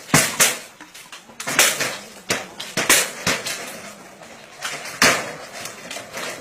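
Corrugated metal sheet fence on a bamboo frame being struck and wrenched down by hand and with poles: a string of loud, irregular bangs and rattling crashes of the tin sheets. The bangs are bunched in the first three seconds, with one more about five seconds in.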